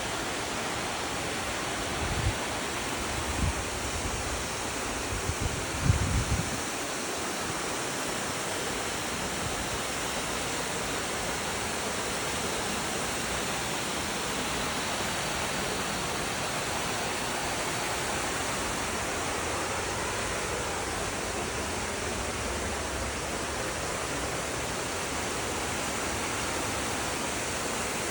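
A mountain stream rushing steadily over rocks. A few brief low thumps come in the first seven seconds.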